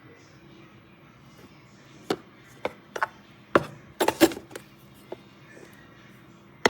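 A series of sharp knocks and clicks, about ten in all, bunched together in the middle, over a faint steady hum.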